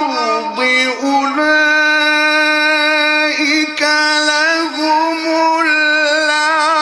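A man reciting the Qur'an in the melodic Egyptian mujawwad style. His voice glides down in the first moment, breaks briefly, then holds one long ornamented note with small wavering turns until near the end.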